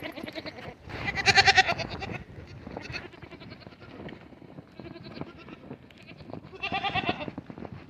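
Dairy goats bleating: a loud wavering bleat about a second in, fainter bleats in the middle, and another loud bleat near the end.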